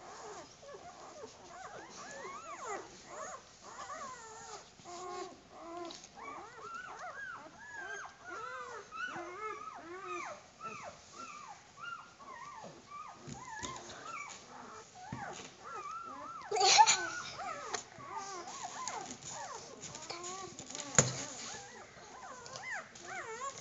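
Newborn German Shepherd puppies squeaking and whimpering, many short high cries often overlapping. About two-thirds of the way in comes a brief louder rustling burst, and a sharp knock a few seconds later.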